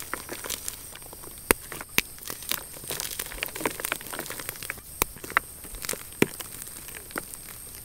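Blocks of crunchy gym chalk crushed and crumbled between the fingers: a continuous gritty crackling broken by irregular sharp cracks as chunks snap apart.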